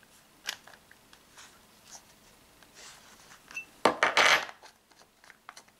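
Tabletop handling noises: a few light clicks while a CO2 airgun pistol is readied for a CO2 capsule, then a short loud clatter of hard objects about four seconds in, as a hand reaches into a bowl on the table.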